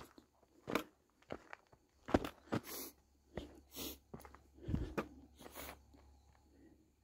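Footsteps crunching on a dirt and gravel hiking trail, irregular at roughly one step a second, with a low thump about halfway through, thinning out near the end.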